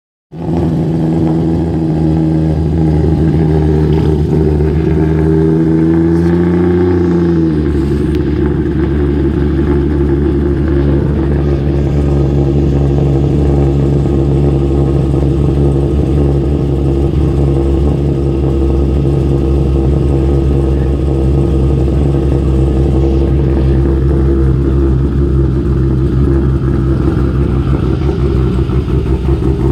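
Fourth-generation Toyota Supra's engine idling, loud. The idle speed creeps up around six seconds in, then drops back about a second and a half later to a lower, rougher idle that holds.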